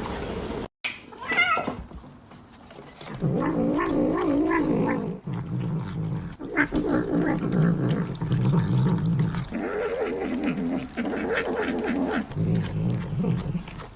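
A cat yowling: a short high meow, then several long, wavering, drawn-out howls one after another.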